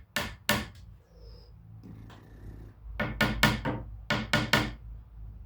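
A small hammer tapping a brass rod into a drilled hole in a wooden musket stock: two strikes at the start, then a quick run of about six taps a little past halfway as the pin is driven through.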